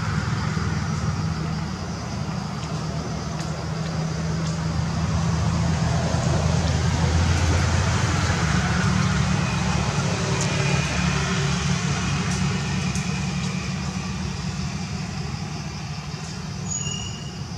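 Low, steady motor rumble, swelling to its loudest about halfway through and easing off toward the end.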